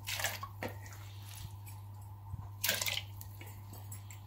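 Raw beef chunks being put by hand into a steel pot of water, with wet squishing and small splashes. The two louder splashes come at the very start and a little under three seconds in.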